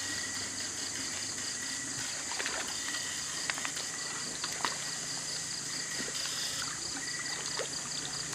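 Shallow stream water running over stones, with a steady high hiss and a few sharp clicks a little past halfway.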